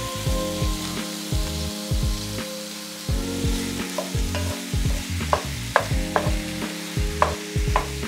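Chopped shrimp sizzling in hot olive oil with onions, garlic and jalapeños in a frying pan, a steady hiss. From about halfway through, a utensil knocks and scrapes against the pan as the shrimp is stirred, in a run of sharp clicks.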